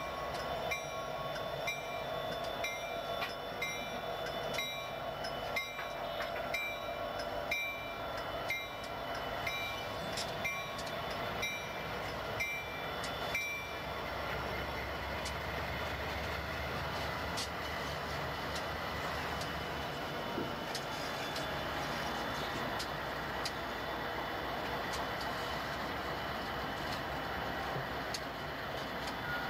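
Grade-crossing bell ringing at a little under two strokes a second, which stops about halfway through. A freight train's cars then roll across the road crossing, with a steady low rumble and wheel clicks over the rail joints.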